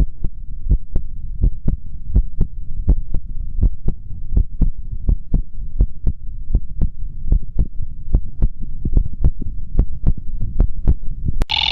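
Heartbeat sound effect: low thumps in lub-dub pairs, about two and a half a second, over a low hum. Near the end a click cuts in, followed by a steady radio-like tone.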